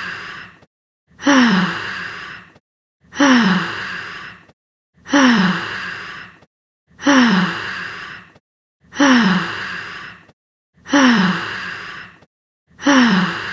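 A stock sigh sound effect looped: the same breathy voiced sigh, its pitch falling as it fades, repeats identically about every two seconds with short silences between.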